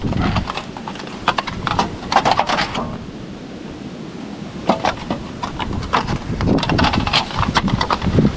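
Thin sheet-metal flashing being handled and pushed into place behind a wooden fascia board: irregular crinkles, taps and scrapes of metal against wood, with a quieter spell near the middle.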